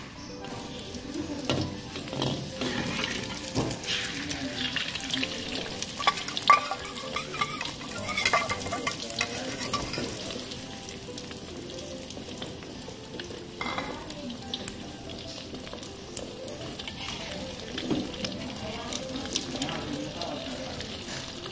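Beaten egg frying in hot oil in a steel wok, sizzling steadily with sharper spits and pops at times. Near the end a metal spatula scrapes and lifts the egg against the wok.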